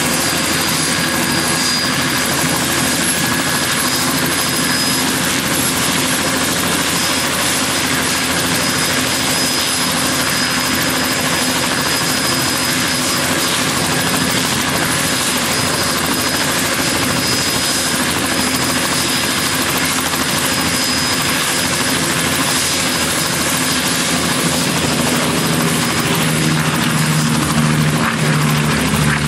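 Bell 206 JetRanger III helicopter running on the ground with its main rotor turning: a steady turbine whine over the rotor and engine noise. Over the last few seconds a low tone grows stronger and the sound gets slightly louder.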